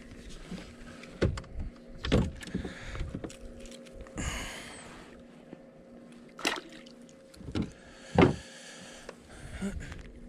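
Irregular knocks and thumps against a plastic fishing kayak, the loudest about eight seconds in, with a short rushing noise around four seconds in and a faint steady hum underneath.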